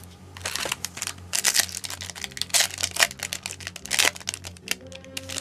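Foil Yu-Gi-Oh booster pack wrapper being torn open and crinkled in the hands: a quick run of crackles and rips, stopping shortly before the end.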